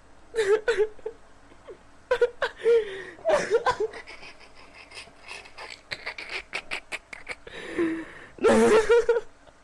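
A person laughing in a string of short bursts and giggles, loudest near the end.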